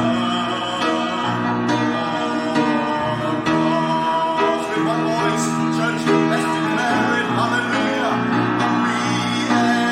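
Worship band music with guitar and singing, held chords running steadily.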